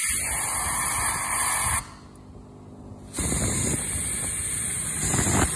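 Aerosol carburetor cleaner sprayed through a straw nozzle into a carburetor's jet passages, as a steady hiss. It comes in two bursts: one of about two seconds, a pause, then a second, longer spray starting about three seconds in.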